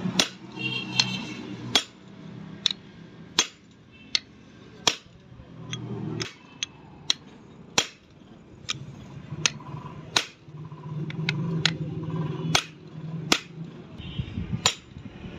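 Repeated hammer blows on a steel chisel set against the pinion nut of a Massey Ferguson tractor's splined pinion shaft, to work the nut loose. Sharp metallic strikes come at roughly one every three-quarters of a second.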